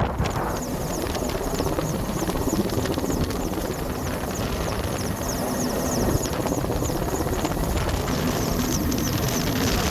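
Helicopter rotor beating steadily overhead, a rhythmic chop over a continuous engine and wind noise.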